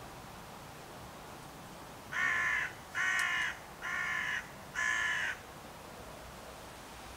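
Four calls from a bird, each about half a second long, evenly spaced a little under a second apart, over a steady background hum.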